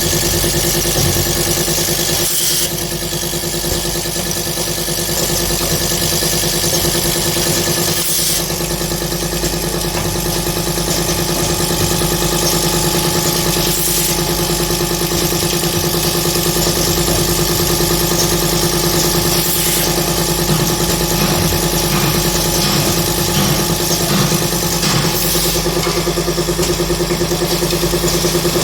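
Automatic blade-nut screwing and tightening machine running: a steady motor hum, with a brief burst of noise about every five to six seconds.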